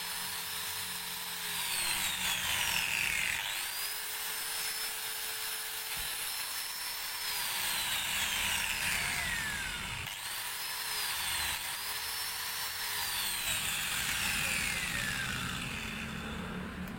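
Maktec MT91 electric angle grinder being test-run after repair, switched on and off repeatedly. Each time it runs at a steady high whine, then the pitch falls as it coasts down after switch-off. This happens four times in all, with a restart after each of the first three.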